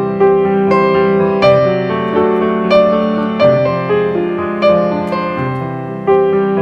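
Background music: a gentle piano melody, single notes struck at a steady unhurried pace and each fading away.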